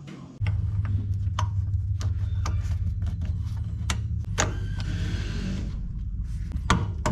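Plastic fuel-line quick-connect fittings clicking and knocking against a truck's fuel tank module as they are handled and pushed on, over a steady low mechanical hum that starts about half a second in.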